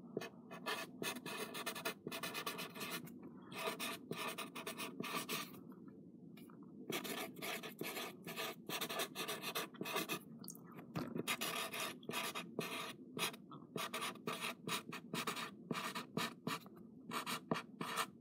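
Sharpie felt-tip marker writing: many short, quick strokes of the tip rubbing and scratching across the surface, with brief pauses between words.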